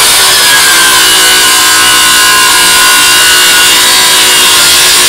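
An older DeWalt 20V cordless circular saw with a worn Freud blade cutting through a 2x4. The motor runs steadily under load as the blade saws through the wood.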